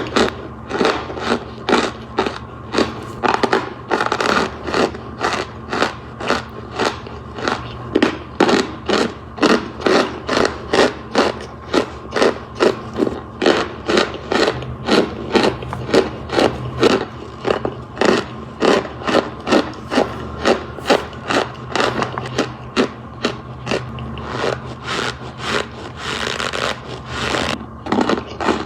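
Dry, crumbly material being crushed and scraped in a steady rhythm of about two strokes a second, with a faint steady hum beneath.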